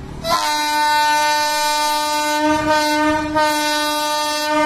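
Locomotive horn of an approaching passenger train sounding one long, steady blast of about four seconds, with a brief dip about three seconds in: a warning as the train nears the level crossing.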